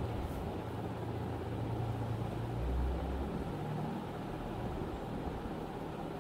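Steady low background rumble and hum, swelling briefly in the bass about three seconds in.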